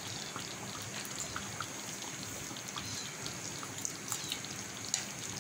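Raw mango pieces simmering in sugar syrup in a pan: a steady hiss with many small scattered pops and ticks of bubbling syrup.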